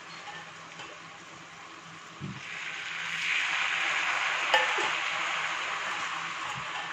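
Teriyaki sauce bubbling and sizzling around a pan-fried chicken piece in a non-stick frying pan. The sizzle swells about two seconds in and eases off toward the end, with a single sharp click midway.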